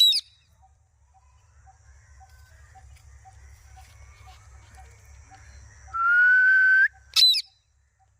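Pet parrot whistling: a short, sharp whistled call at the start and another about seven seconds in, with a louder, slightly rising whistle lasting about a second from around six seconds in.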